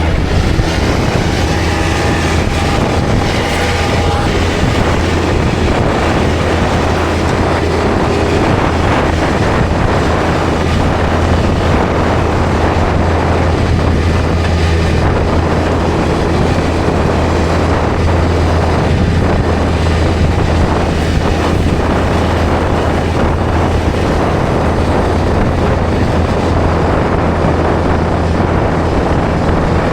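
Skid loader engine running steadily at a constant speed, a continuous low hum with wind noise on the microphone.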